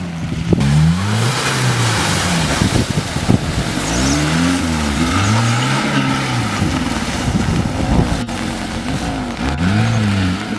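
Lada Niva engine revving up and dropping back three times while driving off-road, the rises coming about half a second in, around four seconds in and near the end, over a steady hiss.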